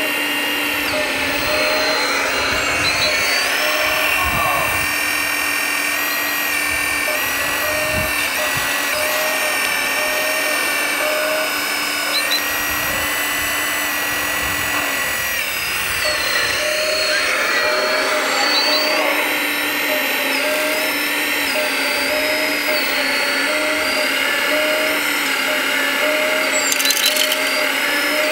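Electric motor and hydraulic pump whine of radio-controlled scale construction machines at work, several steady tones that step up and down in pitch as the machines change speed.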